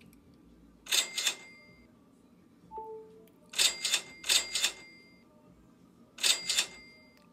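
iPhone order-notification chime sounding four times, each a quick double ring, as new online store orders come in.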